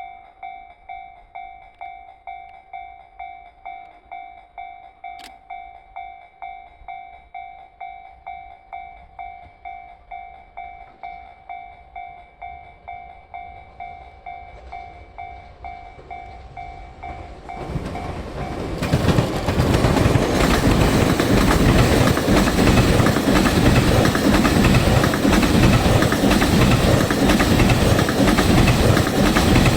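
Level crossing warning bell dinging steadily about twice a second. About eighteen seconds in, the M250-series Super Rail Cargo electric freight train arrives and passes close by: loud running noise with a rhythmic clickety-clack of wheels over rail joints that drowns out the bell.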